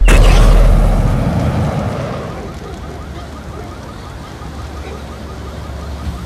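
Explosion sound effect: a sudden loud blast with a deep rumble that dies away over about two seconds, followed by a steady rushing noise.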